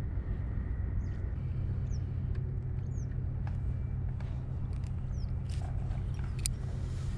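A steady low rumble with a small bird's calls over it: several short, high, downward-slurred chirps, and a few faint clicks.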